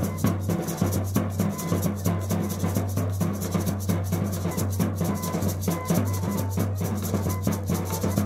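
Drum-and-flute band playing: two drums beaten in a fast, steady rhythm under short high flute notes.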